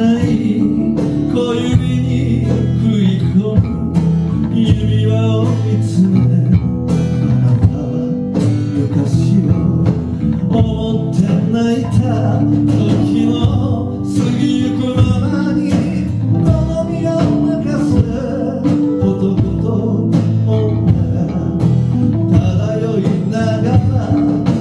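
Small live band playing a slow ballad: acoustic guitar and electric bass under a wavering lead melody.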